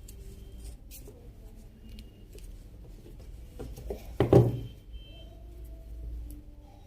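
Handling noises as an electric iron's power cord and test leads are worked on: a short clatter of knocks and scrapes about four seconds in, over a faint low hum.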